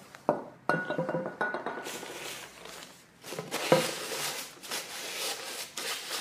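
A few clinks and knocks with a brief ringing tone, then a paper towel rubbing cooking oil into a red ironwood cutting board in repeated strokes.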